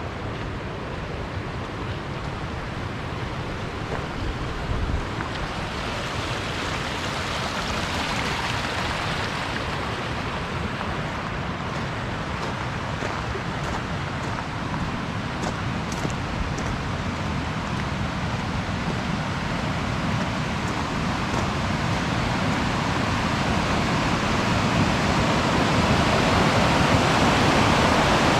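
Rushing water of a mountain creek, a steady roar that grows gradually louder.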